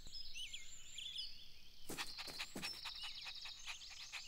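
Faint outdoor ambience of small birds chirping, with a high trill and a run of sharp clicks starting about two seconds in.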